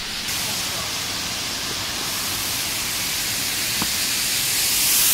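Waterfall cascading over rocks: a steady rush of falling water, with no break or change.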